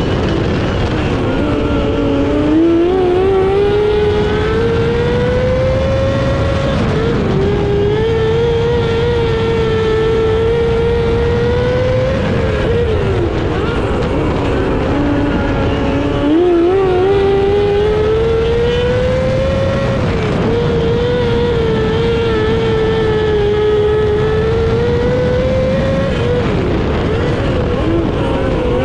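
Micro sprint car engine heard on board at racing speed. Its pitch climbs steadily along each straight, then drops sharply as the throttle comes off for each turn, once deeply and once more lightly on every lap of roughly thirteen seconds.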